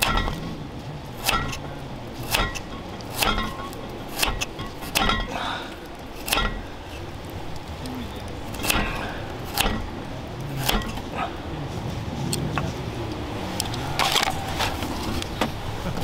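Block of ice being cut or chipped: a series of sharp clinking, cracking knocks about once a second.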